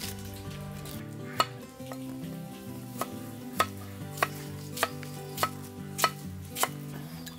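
A large cleaver chops cucumber into slices on a round wooden chopping board, giving sharp knocks that start about a second in and then come regularly, a little under two a second, over background music.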